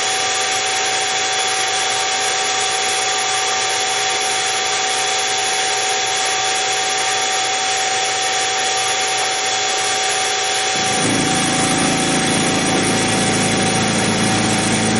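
Harbor Freight mini mill spindle running with an end mill cutting metal as the workpiece is turned under it by hand on a rotary table: a steady motor whine with the rasp of the cut. About eleven seconds in, a deeper, rougher sound joins.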